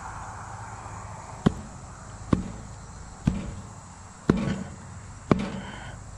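Five sharp knocks, about one a second, as the loose wooden board at the foot of the mailbox post is struck back into place.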